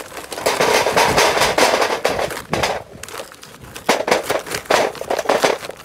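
Charcoal briquettes poured from a bag clattering into a small round metal charcoal grill bowl: a dense rattle for about three seconds, then a few separate knocks as the last briquettes drop.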